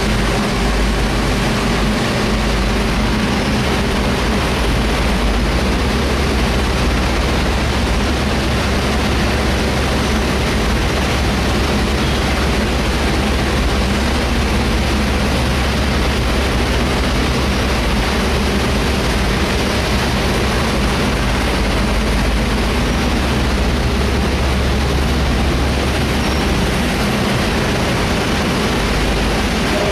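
Large industrial fan for a cement plant running steadily: an even rushing of air over a constant low hum.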